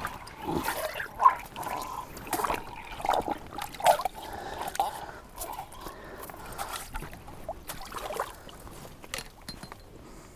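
Water splashing and trickling in an ice-fishing hole as a lake trout is grabbed by hand and pulled up through the ice, with irregular knocks and handling noises, busiest in the first few seconds.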